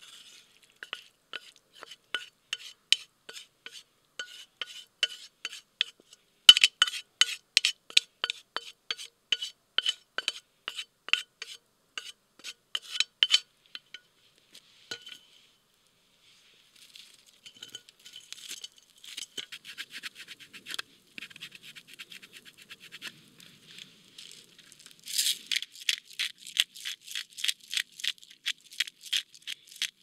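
Hand grinding or grating of toppings over a plate of pasta: quick, even, scraping clicks, three or four a second. They come in two spells with a short break in the middle, and the last few seconds are the loudest.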